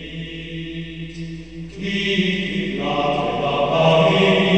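Chant sung by voices in long held notes, growing louder about two seconds in as further voices join on higher notes.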